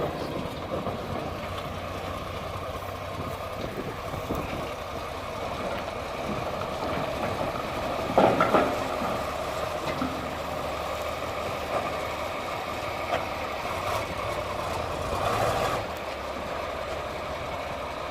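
Diesel engine of a large Caterpillar earthmoving machine running steadily as it works pit-run gravel, louder for a moment about eight seconds in and again near the end.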